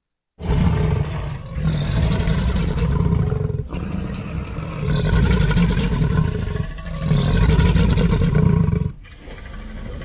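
Made-up dinosaur roars for Aerosteon: three long, rough roars of about three seconds each, heavy in the low end, followed about nine seconds in by a quieter, lower growl.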